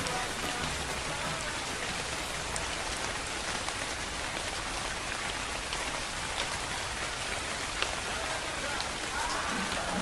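Steady rain falling, an even hiss of rain with scattered drops pattering on a surface. Music with singing comes back in near the end.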